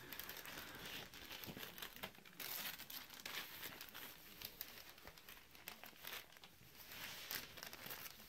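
Wrapping paper on a small present crinkling and rustling in irregular bursts as a dog noses and pulls at it.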